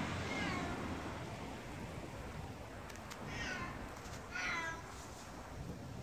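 A cat meowing: a faint call near the start, then two louder meows a little over a second apart, each falling in pitch.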